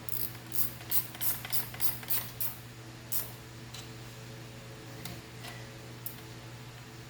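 Hand ratchet clicking while tightening the carburetor's hold-down nuts: a quick run of about nine sharp clicks in the first two and a half seconds, one more a little later, then a few single clicks.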